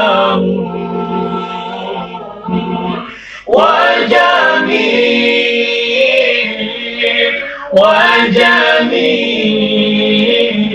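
A small group of men singing an Arabic song in praise of the Prophet without instruments, in long held, ornamented phrases. New phrases begin about three and a half seconds in and again near eight seconds.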